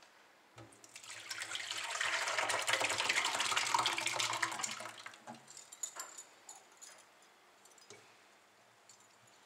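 Curdled milk, soft paneer curds in whey, poured from a steel pot into a muslin-lined colander in a sink: a splashing pour that swells and then tails off after about four seconds, followed by a few faint clicks.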